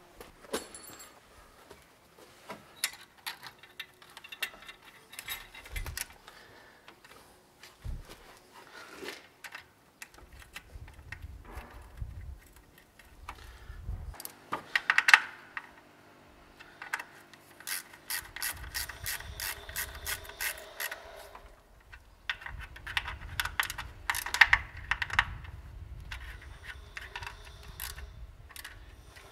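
Hand ratchet wrench clicking in several long runs of fast clicks, with scattered knocks of metal tools, as bolts are worked at the timing-chain end of a BMW M52 engine.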